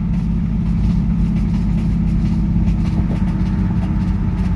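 Pontiac Trans Am's LS1 5.7-litre V8 idling with a steady rapid knocking from the bottom end: a spun or worn connecting-rod bearing (rod knock).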